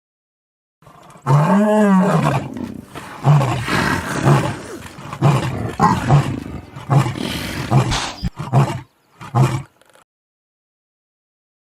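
A big cat roaring: one long roar about a second in, then a run of shorter, repeated roaring grunts that stop near the end.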